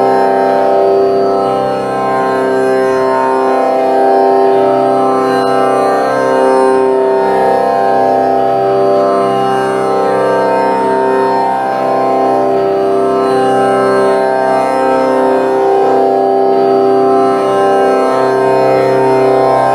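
Instrumental music in an Indian classical style: a melody moving slowly over a steady drone.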